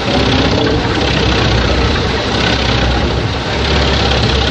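Mus-Max Terminator 10 wood chipper running steadily with its drive engine: a low, even engine note under a broad rushing noise, with no sharp impacts.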